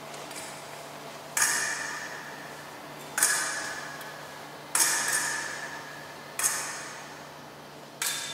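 Five sharp, ringing metallic hits, about one and a half seconds apart, each dying away slowly, over a low steady hum.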